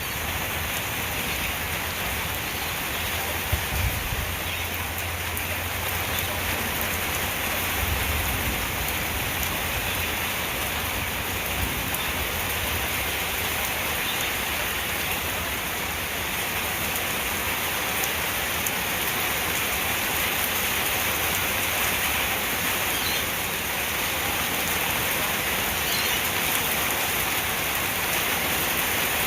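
Heavy rain falling steadily in a thunderstorm, an even hiss throughout, with a brief low rumble about 4 seconds in and again about 8 seconds in.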